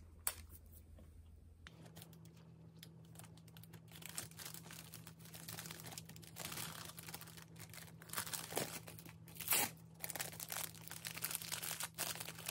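Thin clear plastic bags crinkling and rustling as squares of sponge cake are slipped into them and the wrap is pressed down by hand, with a couple of louder rustles about two-thirds of the way through.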